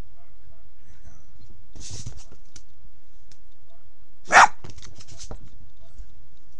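A dog gives one loud, short bark about four seconds in, followed by a few faint clicks. A softer, noisier sound from the dog comes about two seconds in.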